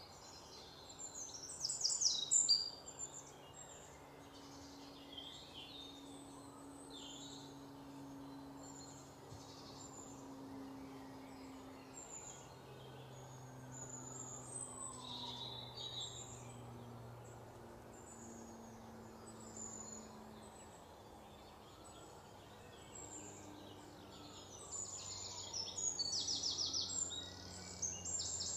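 Small birds chirping and twittering, with quick trills of rapid chirps about two seconds in and again near the end, over a faint steady background with soft, drawn-out low tones.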